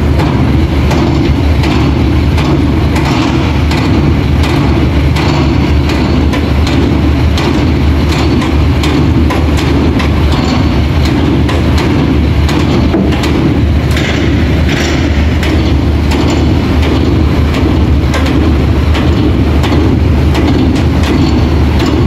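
Heavy diesel engine running steadily at close range, with scattered light clicks and knocks over it.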